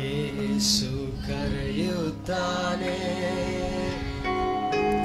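Instrumental introduction to a Kannada Christian worship song: held chords with a few short melody notes.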